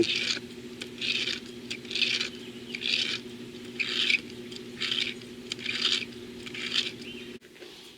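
Die-cast car wheels rubbed across wet 2000-grit sandpaper, short hissing sanding strokes about once a second, eight in all, under a faint steady hum.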